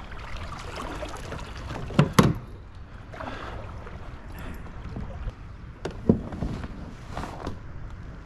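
Water splashing and sloshing around a kayak, with a few sharp knocks: the loudest pair about two seconds in, and smaller ones later.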